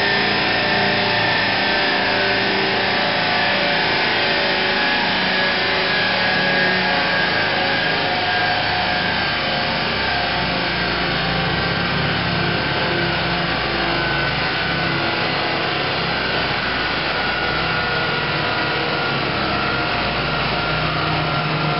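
Alfa Romeo 145's turbocharged 2.0 16-valve engine running at high revs on a roller dynamometer, its driven tyres spinning the rollers. The result is a loud, steady drone with a whir from the tyres and rollers.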